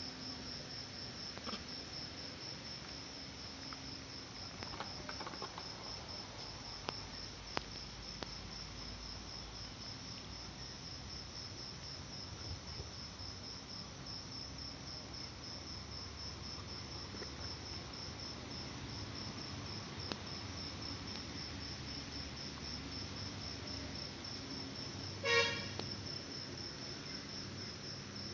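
Cricket chirping: a steady, high-pitched pulsing trill that runs on without a break. About 25 seconds in, a brief horn-like toot cuts across it, the loudest sound here.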